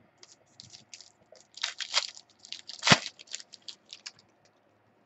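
Thin clear plastic crinkling and crackling in quick, irregular bursts as trading cards are handled in plastic card sleeves, with one sharp snap just under three seconds in.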